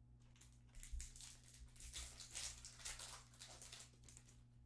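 Faint crinkling and rustling of a foil trading-card pack and its cards being handled, a quick run of crackles that dies away near the end, over a steady low electrical hum.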